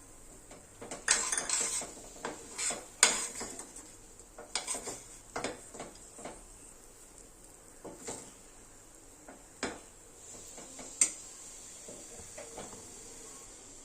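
A metal spoon clinking and scraping against metal cookware in irregular strokes, busiest in the first few seconds, with a few sharper knocks later.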